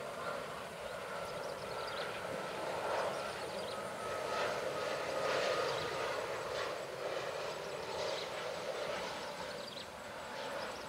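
Airbus A330 jet engines on landing approach: a steady jet roar with a faint whine, swelling to its loudest about halfway through and then easing off as the airliner passes.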